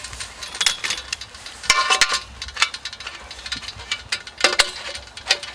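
Stainless steel legs being fitted and twisted into the aluminium frame of a Snow Peak Iron Grill Table: a series of metal clinks and knocks, some ringing briefly, the loudest about two seconds in and again about four and a half seconds in.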